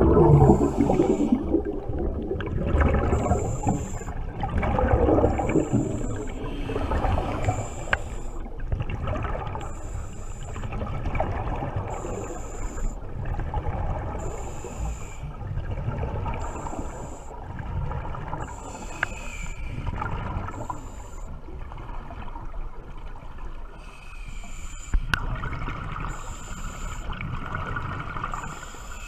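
Scuba diver's regulator breathing heard underwater: rumbling, gurgling exhaled bubbles, with a short high hiss coming back roughly every two seconds.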